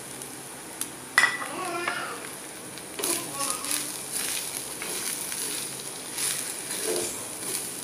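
Chopped, pre-boiled jackfruit sizzling in coconut oil in a clay pot, with a sharp knock about a second in. From about three seconds in a spatula stirs it, scraping against the pot.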